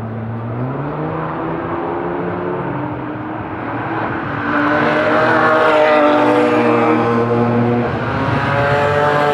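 Car engine under hard acceleration, its pitch climbing and growing louder about halfway through. Near the end the pitch drops briefly, as at a gear change, then climbs again.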